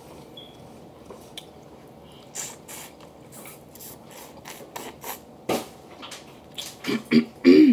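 Close-up eating sounds: shrimp being peeled by hand and chewed, with scattered wet mouth clicks and smacks that grow louder and more frequent near the end, where there is a short vocal sound.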